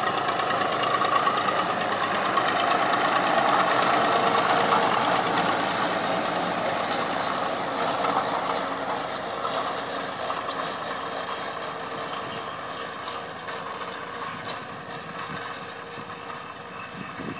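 Ursus C-360 3P tractor's Perkins three-cylinder diesel engine running steadily under load as it pulls a rotary hay rake. It passes close by and then fades as it drives away.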